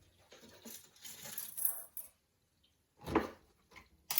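Handling noises from a plastic scale model kit and its box: light rustling and soft knocks, with a louder knock about three seconds in and a sharp click near the end.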